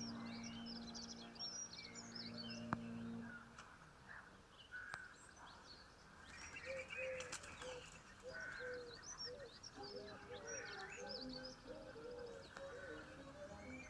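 Garden birdsong: several small birds chirping and trilling in a high register. Instrumental music fades out in the first few seconds and comes back faintly near the end.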